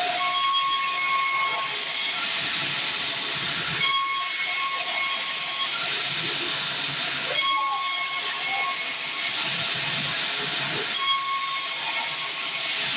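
Sawmill band saw cutting timber: a steady rushing hiss, with a thin ringing tone that comes in for a second or so about every three and a half seconds.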